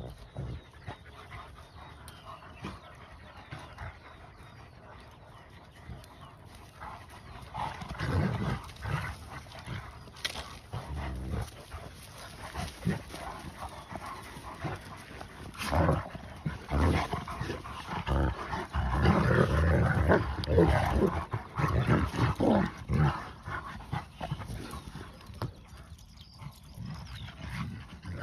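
Several large dogs play-fighting, with bursts of growling and barking that start about a quarter of the way in and are loudest a little past the middle.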